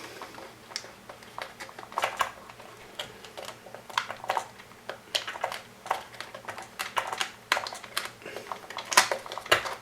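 Irregular light clicks and taps of small hard parts being handled and fitted, with a louder click near the end.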